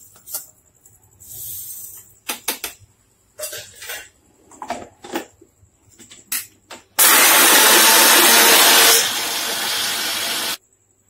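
Roasted fenugreek seeds rattle into a mixer-grinder jar, followed by several clicks and knocks as the jar and lid are set in place. About seven seconds in, the electric mixer grinder (mixie) runs loudly for about three and a half seconds, grinding the dark-roasted seeds to a coffee-like powder. It drops slightly in level partway through, then cuts off suddenly.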